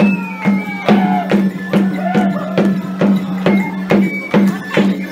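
Music with a steady beat of about two strokes a second over a low held note, with a wavering melody line above it.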